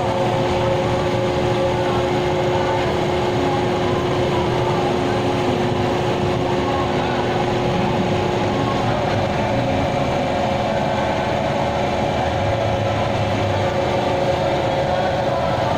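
An engine runs steadily, with several even, high, whining tones over a low rumble. There are no hammer blows.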